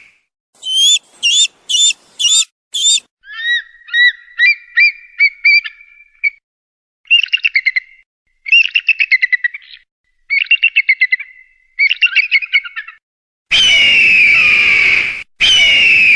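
Eagle calls: five short, high piping notes, then a run of rising whistled notes, then several bursts of rapid chattering, and near the end two long, harsh screams.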